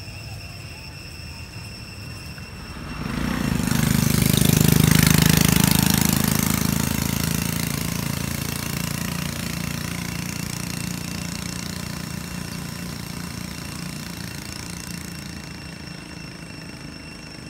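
A motor vehicle's engine passing by: it comes up about three seconds in, is loudest around five seconds, then fades away slowly.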